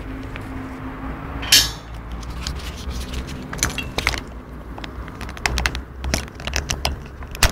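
Metal clinks, knocks and a short scraping rattle about one and a half seconds in, as a bicycle lock and its chain are handled after being unlocked, over a steady low rumble.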